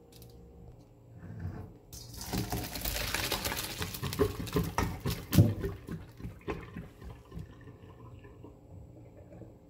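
Boiled ackee and hot cooking water poured from a pot into a stainless steel colander in a sink: a rush of water starts about two seconds in and tapers off as it drains, with a few knocks near the middle.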